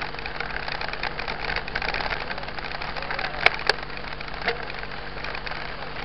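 Mountain bike rolling over a gravel dirt road: steady tyre crunch and rattle of the bike, with two sharp clicks a little past halfway.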